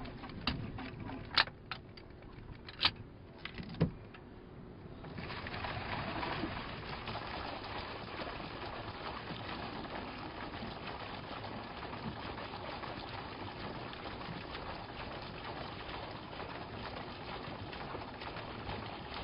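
Hand-cranked self-priming transfer pump being worked by hand: a few sharp clicks and knocks as the cranking begins, then from about five seconds in a steady rush of water as the pump catches its prime and discharges through the hose.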